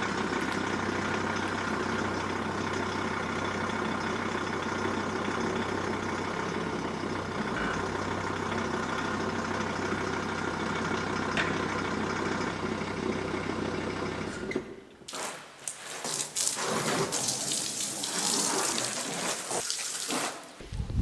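Water spraying during a car wash: a steady motor hum with a spray hiss for about fifteen seconds, then a sudden change to loud, uneven hissing of water spray.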